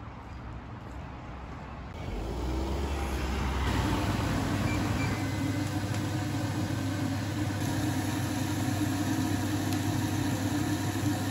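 A steady machine hum with an even hiss, like a kitchen fan running. It comes in about two seconds in after a quiet start and grows fuller a couple of seconds later, then holds steady.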